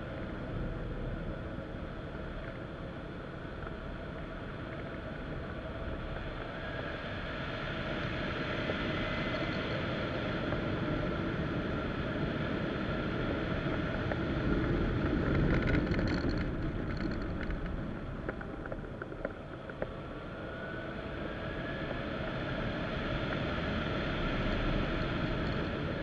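Steady rush of air over a wing-mounted camera on a hang glider in flight, swelling a little past halfway, with faint steady tones underneath and a few faint ticks.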